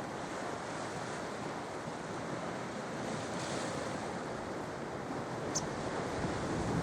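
Sea waves washing onto the shore: a steady rush of surf that swells slightly near the end.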